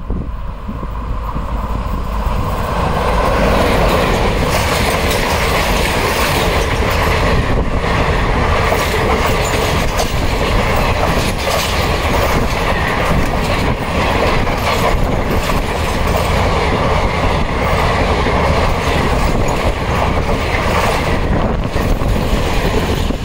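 The 22644 Patna–Ernakulam Superfast Express passing at speed a few metres away: a loud, steady rush of coaches with wheels clattering over the rail joints. The noise builds over the first three seconds as the train arrives, then holds as carriage after carriage goes by.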